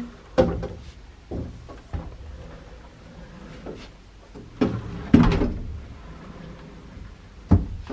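Cupboard or closet door and things being handled: about six separate knocks and thumps with rustling between them, the loudest about five seconds in and a sharp one near the end.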